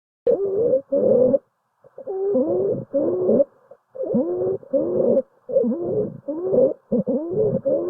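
Stridor: a run of short, pitched, cooing breath sounds, each about half a second long with a gliding tone, coming in quick succession with a brief pause about a second and a half in. Stridor is the sign of a narrowed upper airway.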